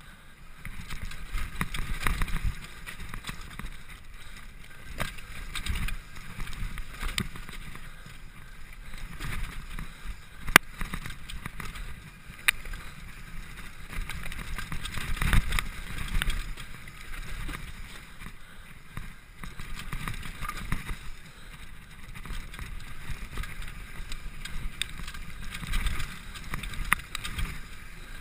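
Mountain bike riding fast down a dirt forest trail: wind buffeting the camera's microphone and tyres rumbling over dirt and roots, surging and easing, with sharp rattles and clanks of the bike over bumps, the loudest clank about ten and a half seconds in.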